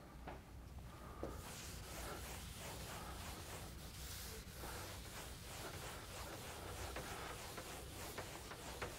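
Chalkboard eraser rubbing across a chalkboard in repeated faint strokes, starting about a second in.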